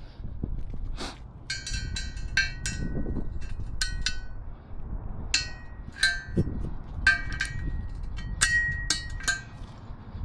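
Metal hand tools clinking and tapping on metal, about twenty irregular strikes, each ringing briefly, while a valve stem is fitted to a truck wheel.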